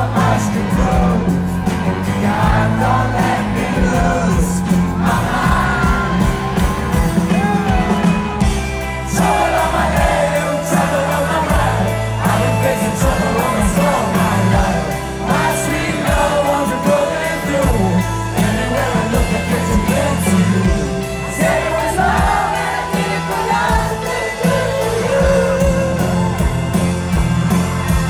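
Live rock band playing through a loud PA, with singing over the guitars, bass and drums, heard from the audience floor.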